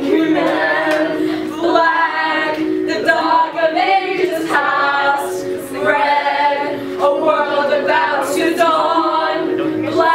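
Music: a group of voices singing a song together, choir-like, with held notes.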